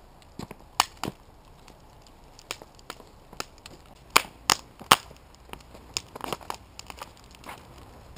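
Wood fire crackling in a fire pit, with irregular sharp pops and snaps; the loudest cluster of pops comes around the middle.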